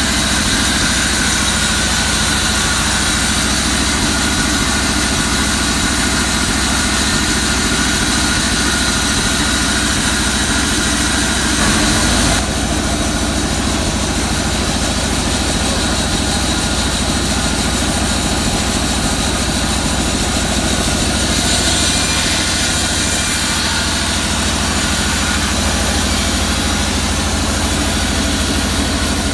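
Band sawmill's engine running steadily, not under cutting load while the log is being positioned; the sound steps down slightly about twelve seconds in.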